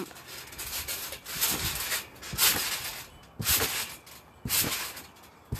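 Trampoline mat and springs under someone jumping high: a short swishing burst with each bounce, about once a second.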